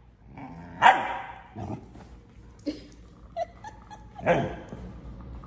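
Husky vocalizing in short, loud barks and yips, three main cries with falling pitch about a second in, near two seconds and past four seconds, with quieter whimpers between.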